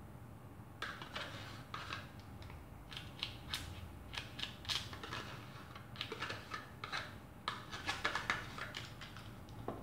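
Yogurt being emptied from a small plastic tub into a glass blender jar: a run of short, irregular scrapes and clicks of the tub and spoon against the container, starting about a second in.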